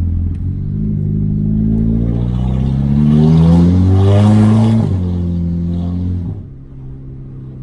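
Audi A3 8P's turbocharged engine breathing through a downpipe and 2.5-inch straight-pipe exhaust, revved up slowly for about four seconds, then let off sharply and settling back to idle near the end. The exhaust has the gargle the owner finds excessive.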